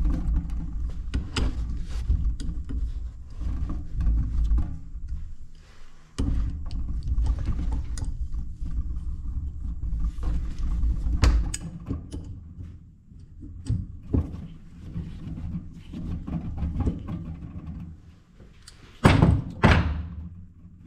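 Hand tools working the nut off a stud on a cast-iron hydraulic valve: scattered clicks and metal knocks over a steady low hum, with two loud knocks near the end.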